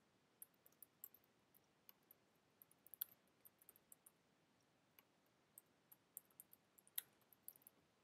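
Typing on a computer keyboard: faint, irregular key clicks, with a couple of louder keystrokes along the way.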